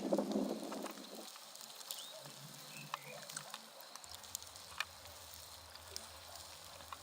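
A goat bleats once at the start, the call lasting about a second, followed by faint scattered clicks.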